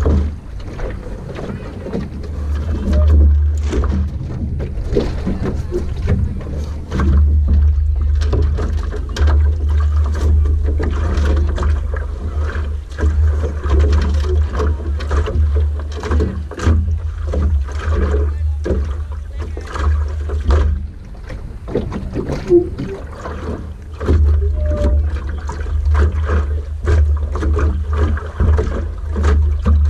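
An Optimist sailing dinghy under way: water splashing and slapping against the hull, and a deep, uneven wind rumble on the microphone that drops out briefly now and then.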